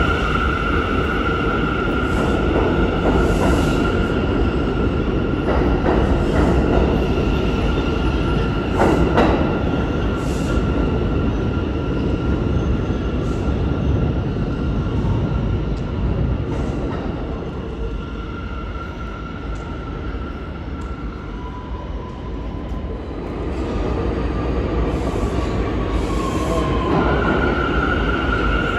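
New York City Subway trains: one rumbles out along the platform with a steady high electric motor whine and wheel clatter, fading away past the middle. A second train then approaches, its motor tone gliding down in pitch as it slows into the station near the end.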